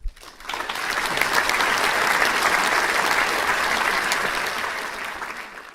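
Applause: many hands clapping together, swelling over the first second and fading out near the end.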